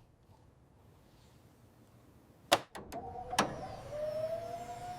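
A few sharp clicks about halfway in, then a small electric motor whining steadily, its pitch rising slightly.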